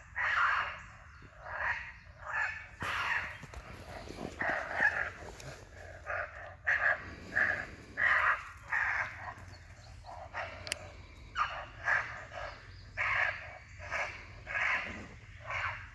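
Lucky Duck electronic predator call playing a recorded animal distress sound through its speaker: short harsh cries, one or two a second.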